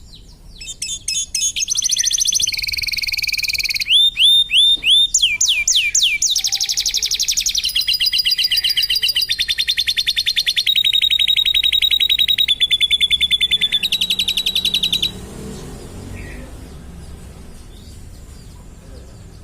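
Domestic canary singing a long song of rapid trills, switching from one fast repeated note to another every second or two. It stops abruptly about fifteen seconds in.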